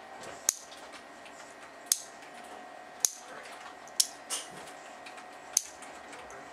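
Trigger-and-sear assembly of a spring-powered bolt-action airsoft sniper rifle worked by hand: its parts snap back into place with five sharp clicks, one every second or so.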